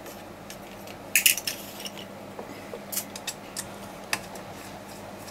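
Light metallic clinks and clicks from a battery charger's aluminium case being taken apart: a cluster of clinks about a second in, like a small screw dropped into a glass, then a few single ticks as the metal case is handled.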